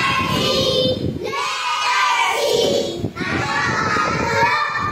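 A class of young children chanting letter sounds together in phrases, a group of voices in a phonics drill.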